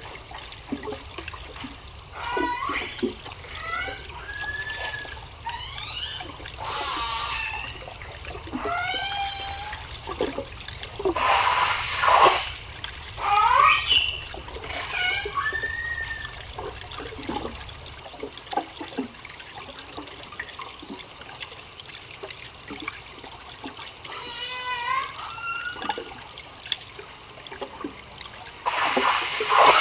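Whale calls: many short rising and falling whistles and squeaks. Several loud rushing water sounds break in between them, and a low rumble stops partway through.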